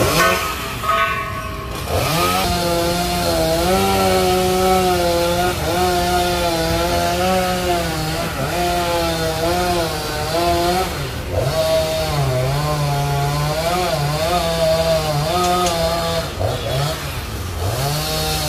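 Gasoline chainsaw cutting into the thick base of a Bucida molinetii trunk. The engine comes up to speed about two seconds in and holds a high, steady note under load, sagging in pitch several times as the chain bites into the wood.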